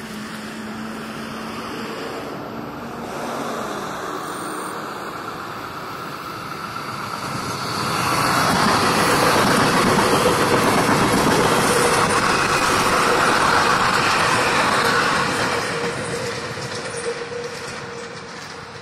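Passenger train on the Northeast Corridor approaching and passing at speed. Wheels on rail make a rush that builds, is loudest for about seven seconds in the middle as the cars go by, then fades away near the end. A steady hum runs under the loudest part.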